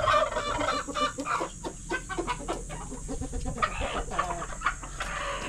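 Chickens clucking, many short calls close together, while they feed.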